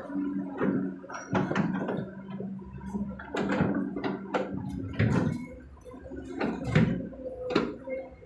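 Kobelco SK200 excavator's diesel engine running steadily under a string of loud clatters and thuds, as its bucket dumps earth and rock into a dump truck's bed.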